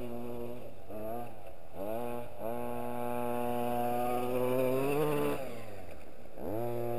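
Himoto 1/5-scale RC truck's 26cc two-stroke petrol engine revving up and down as it is driven. There are short blips about one and two seconds in, then a long rising rev that drops off sharply around five seconds in, and a dip before it climbs again near the end.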